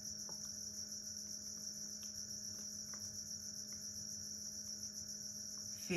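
Crickets chirping in a steady, continuous chorus, with a faint low hum underneath.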